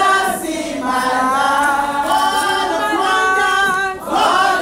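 A choir singing, apparently unaccompanied, holding long notes, with a short break between phrases about four seconds in.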